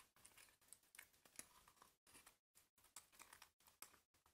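Faint, irregular rustling and crinkling of 3D paper puzzle pieces being handled and pressed into place, with small clicks of card tabs.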